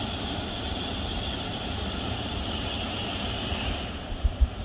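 Steady rush of water pouring through the gates of a concrete dam spillway, with two brief low thumps near the end.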